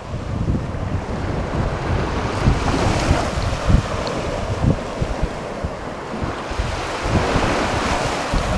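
Wind buffeting the microphone over the steady wash of ocean surf, the surf swelling twice.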